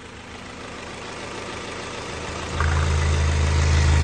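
Sports car engine idling with the hood open. A little over halfway through, a louder, deep, steady hum comes in and holds.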